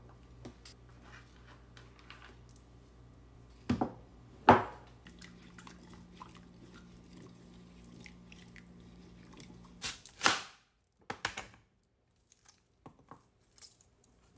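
A kitchen knife cutting through a raw onion onto a plastic cutting board: a few crunchy cuts and knocks, the loudest about ten seconds in, with lighter clicks and knocks scattered through the rest.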